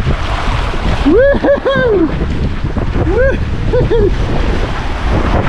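Water rushing down a water slide under a rider on an inflatable ring, with wind buffeting the microphone. The rider whoops five times, three short whoops about a second in and two more about three seconds in.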